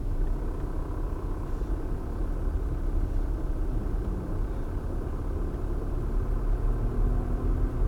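Ford Mondeo running at low speed, a steady low engine and road rumble heard from inside the cabin.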